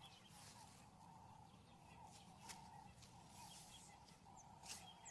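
Near silence: faint bush ambience with a soft droning note that comes and goes, and a few faint clicks.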